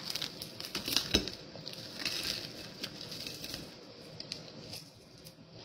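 Kitchen handling sounds: a paper or plastic wrapper rustling, with scattered light clicks and taps, a few close together about a second in, as food is handled at the counter.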